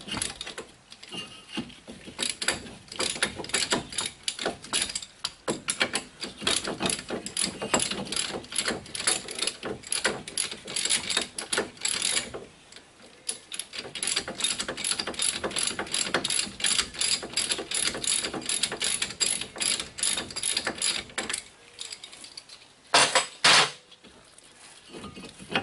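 Hand ratchet clicking rapidly as it backs out a rusty 18 mm caliper bracket bolt, in two long runs with a short pause between. A short loud clatter near the end.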